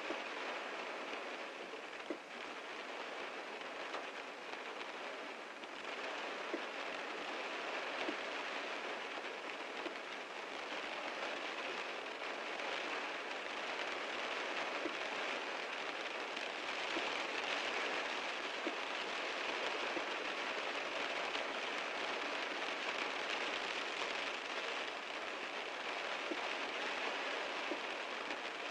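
Heavy rain falling on a car, a steady dense hiss with scattered individual drop ticks, growing a little heavier about two-thirds of the way through.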